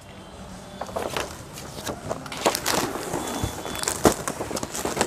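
Plastic packaging of boxed sarees crinkling and rustling irregularly as it is handled, with a few sharper knocks mixed in.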